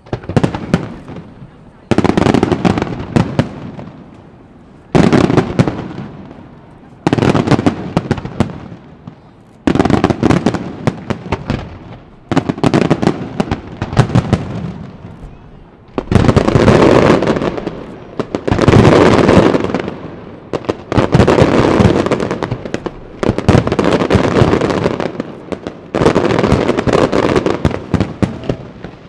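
Aerial fireworks shells bursting in salvos, a loud bang about every two to three seconds, each followed by a dense crackling tail that dies away before the next.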